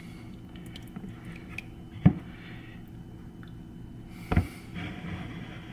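A metal spoon scraping and knocking against a glass jar of mole paste: two sharp clinks, one about two seconds in and another past four seconds, with a short scrape after the first, over a steady low hum.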